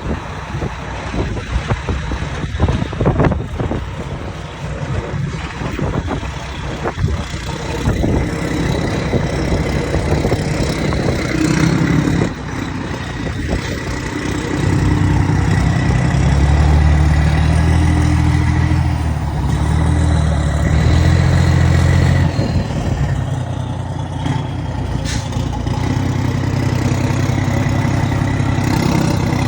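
Heavy diesel truck engine and exhaust rumbling under load, loudest from about halfway through, the engine note shifting in steps.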